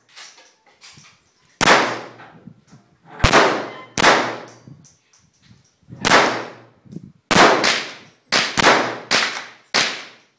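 Semi-automatic pistol firing about ten shots at an uneven pace, some in quick pairs about a quarter second apart, each shot sharp with a ringing echo.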